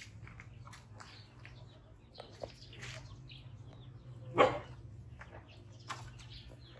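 A puppy barks once, short and sharp, about four and a half seconds in, amid light scuffling and clicks as it jumps and plays.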